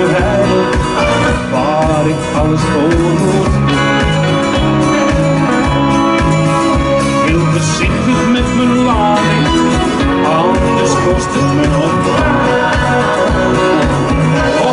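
Upbeat pop song played loud over a stage PA: a backing track with a steady beat, and a man singing live into a microphone over it.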